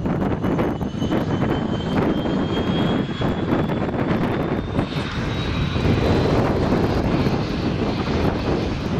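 Aérospatiale AS 332 Super Puma helicopter running on the ground with its main rotor turning: a loud, steady rotor-and-turbine noise. Over its top a thin turbine whine climbs slowly in pitch over the first few seconds as the rotor speeds up for take-off.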